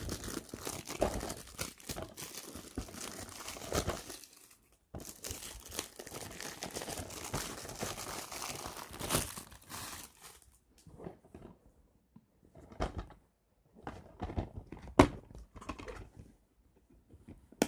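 Plastic shrink-wrap being torn and crinkled off a CD case for about ten seconds, followed by scattered clicks and taps as the plastic case is handled.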